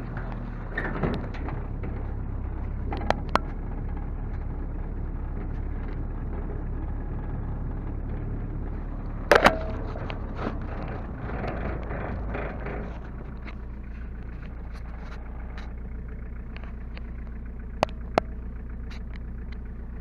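Motor vehicle engine running with a steady low drone while driving, with a few sharp knocks and rattles; the loudest knock comes about nine seconds in.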